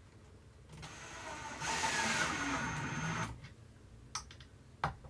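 Ryobi cordless drill driving a screw into a wooden cabinet frame, running for about two and a half seconds from about a second in and stopping abruptly. A few sharp clicks follow near the end.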